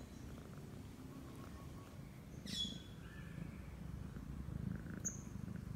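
Domestic cat purring steadily while being stroked, a continuous low rumble. Two short bird chirps cut in: one falling in pitch about halfway through, and a brief one near the end.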